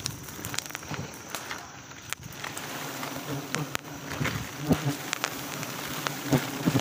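A wild giant honey bee colony buzzing steadily at close range on its open comb, the hum filling out after a few seconds. Scattered clicks and a couple of knocks sound over it.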